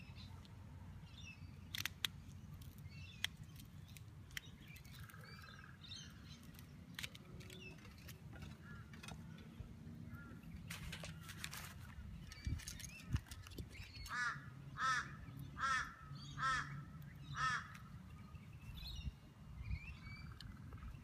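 A crow cawing about five times in a row, evenly paced, in the second half. Underneath are scattered small clicks from an F connector and rubber boot being worked onto RG6 coaxial cable by hand.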